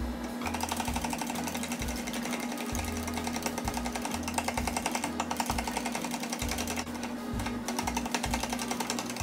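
Chopsticks beating eggs in a small glass cup, clicking rapidly and steadily against the glass, starting about half a second in. Background music with low bass notes plays underneath.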